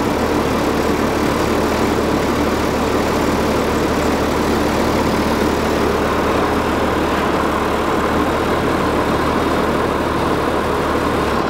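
Old bucket truck's engine idling steadily.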